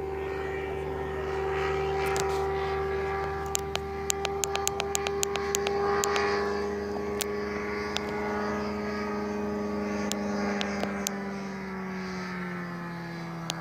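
Radio-controlled model airplane's engine running steadily in flight, a pitched drone that drops a little in pitch near the end. A run of sharp clicks sounds through the middle.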